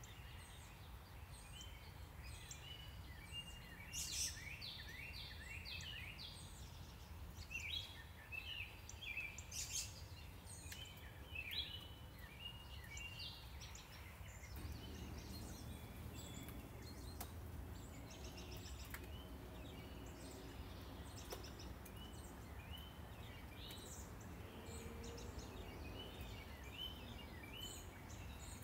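Songbirds chirping and singing in quick short phrases, busiest in the first half, over a steady low rumble of distant town traffic that grows a little fuller about halfway through.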